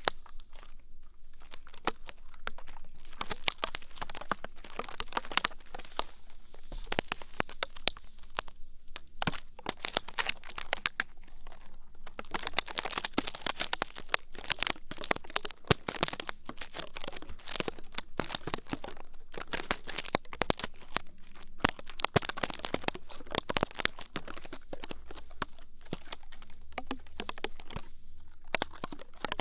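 Ear-cleaning ASMR: tools scratching, scraping and rustling close against the microphone, a dense run of crackly clicks and crinkles that swells and eases without a steady rhythm.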